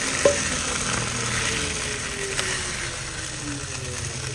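A low steady engine-like hum with a faint tone that slowly falls in pitch, over a light hiss. There is a single sharp click just after the start.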